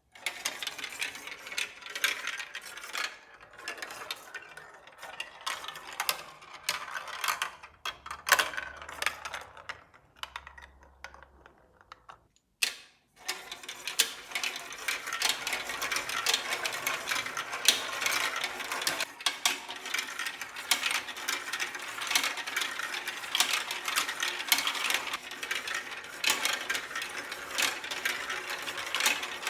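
Plastic balls rolling and clattering down a LEGO Duplo marble run's plastic track pieces, a busy stream of small clicks and rattles. The sound breaks off briefly about halfway through, then resumes thicker and steadier.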